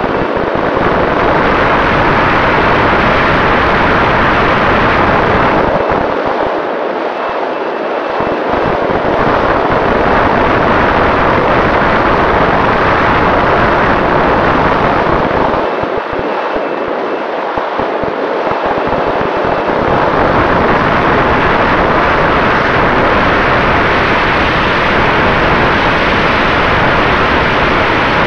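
Wind buffeting the onboard camera's microphone on an AR900 RC plane in flight, with the electric motor and propeller running at half throttle beneath it as a faint steady tone. The low wind rumble drops away twice for a few seconds, about six and sixteen seconds in.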